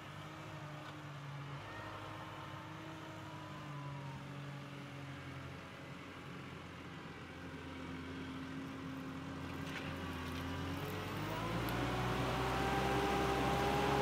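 Tractor engine running steadily, then speeding up about ten seconds in, its pitch rising and the sound growing louder.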